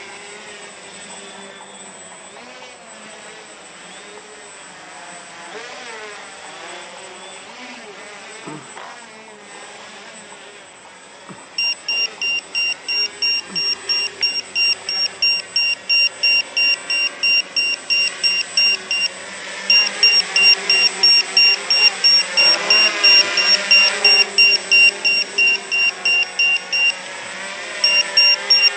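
A high electronic buzzer beeps rapidly in runs, starting about a third of the way in and broken by two short pauses. Before it starts, only a faint, wavering whir is heard.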